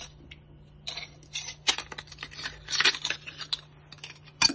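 Fillet knife blade scraping and clicking against the inside of a geoduck's shell as it cuts the meat free: a quick, irregular run of small clicks and scrapes, then one sharp click near the end.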